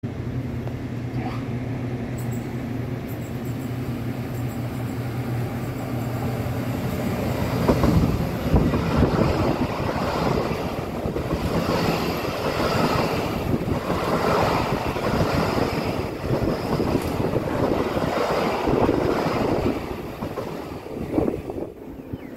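Taroko Express tilting electric multiple unit passing at speed: a steady low motor hum as it nears, then about eight seconds in a louder rush with a regular beat of wheels over rail joints as the cars go by, dying away near the end.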